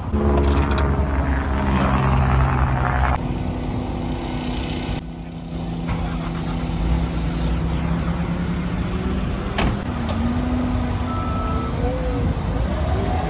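Bobcat compact track loader's diesel engine running steadily, with short rising and falling whines in the last few seconds as its hydraulics raise the lift arms.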